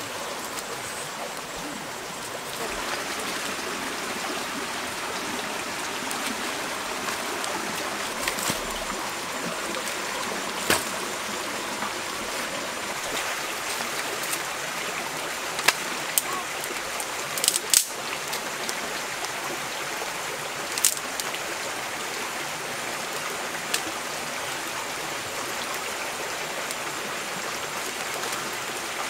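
Shallow stream flowing steadily over rocks, a continuous rushing wash. A few sharp clicks and snaps cut through it about a third of the way in and again past the middle, as sticks are handled and laid on a small campfire.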